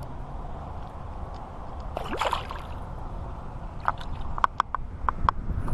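Water sloshing, with a louder splash about two seconds in. A run of short, light clicks follows near the end.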